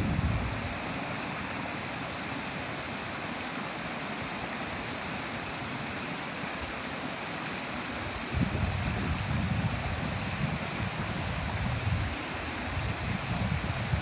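Shallow mountain creek flowing and splashing through gaps in a low line of stones and debris, a steady hiss of moving water. From a little past halfway, gusts of wind buffet the microphone with uneven low rumbles.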